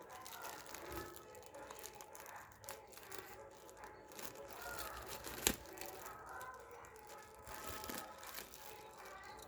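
Plastic packaging crinkling and rustling as it is handled and opened, with one sharp click about five and a half seconds in.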